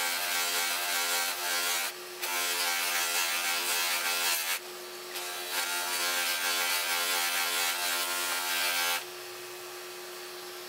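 Steel plate of a Disston back saw pressed against the spinning buffing wheel of a WEN bench grinder: a steady hiss of the blade being polished over the motor's even hum, broken twice by brief lifts of the blade. About nine seconds in the blade comes away and only the grinder motor runs on.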